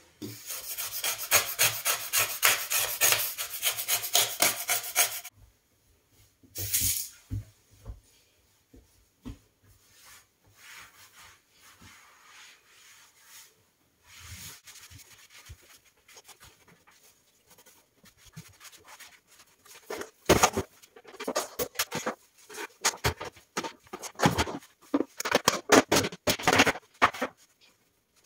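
A blade scraper scraping burnt-on residue off a glass-ceramic hob in rapid back-and-forth strokes, which stop after about five seconds. Scattered rubbing follows, then a busy stretch of scrubbing strokes near the end.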